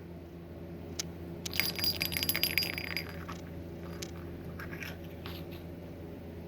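Light clinking and rattling of small hard objects for about a second and a half, preceded by a single click, over a steady low hum.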